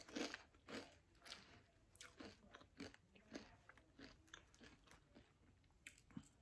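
Faint, irregular crunching of a kettle-style potato chip being chewed, fading over the first few seconds, with a fresh crisp bite near the end.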